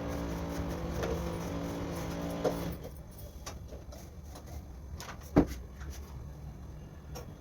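A steady machine hum that cuts off abruptly a little over a third of the way in, followed by a few light clicks and one sharp knock.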